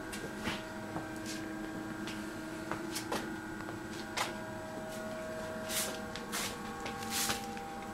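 Steady electrical hum made of several tones, with a few soft scuffs and clicks scattered through it.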